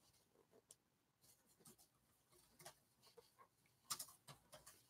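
Near silence with faint scratchy rustles and small clicks of an 8 mm crochet hook drawing bulky yarn through stitches, with a short cluster of louder clicks about four seconds in.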